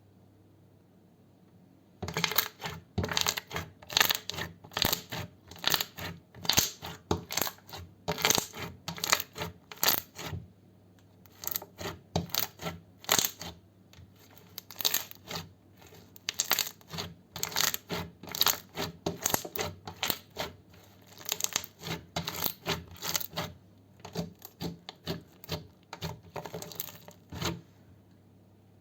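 Slime being squeezed and pressed in the hands, giving off quick runs of crisp crackling clicks and pops, with a short pause partway through.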